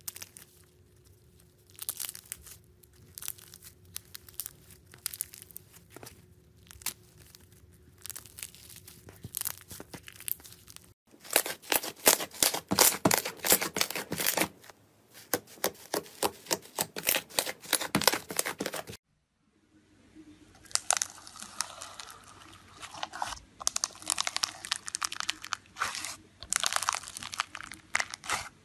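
Slime being stretched, torn and pressed by hand: dense crackling and popping clicks, loudest in the middle stretch. After a short gap, floam slime full of foam beads is pressed, crunching and crackling.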